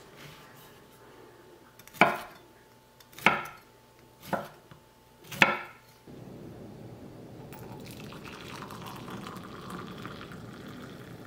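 A large kitchen knife chopping down through a baked pistachio cookie log onto a wooden cutting board: four sharp cuts about a second apart. About six seconds in, coffee is poured in a steady stream into a ceramic mug.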